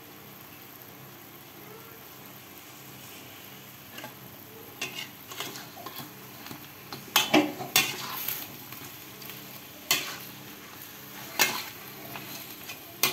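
Chicken pieces sizzling in a steel wok as the last of their liquid cooks off. About five seconds in, a metal wok ladle starts stirring them, scraping and clanking against the wok every second or so.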